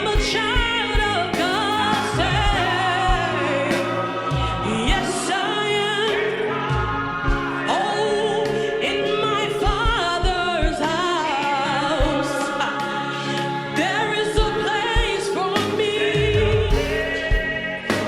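Gospel praise singing: lead voice and choir singing over a band with keyboard and drums keeping a steady beat.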